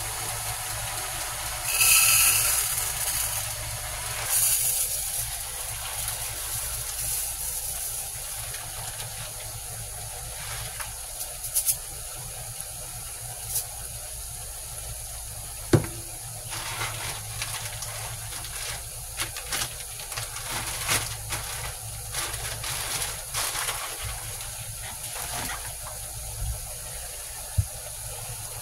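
Kitchen cooking sounds: a loud hissing rush about two seconds in and a shorter one near four seconds, then a steady low hum and faint hiss with scattered clinks and knocks of pots and utensils.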